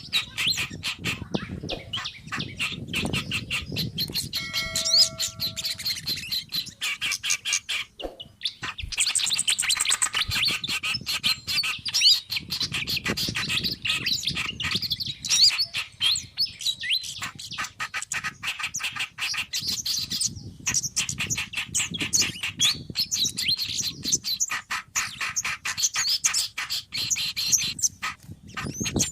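Dense, noisy chatter of small songbirds calling over one another: a bird-lure recording that mixes the calls of kerak basi, sikatan kipas (fantail), sogon and kemade, with rapid high chips and brief pauses. A short run of steady whistled tones comes about five seconds in.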